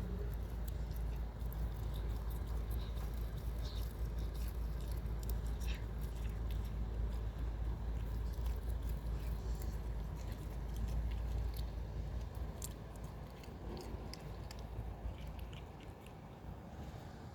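A cat chewing and tearing blades of oat grass: a quick, irregular run of small crisp crunches and snaps, over a steady low rumble that fades near the end.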